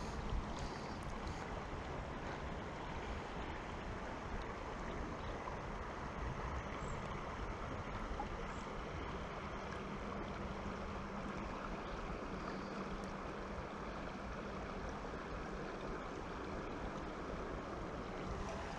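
Steady rush of river current flowing around an angler wading in the water.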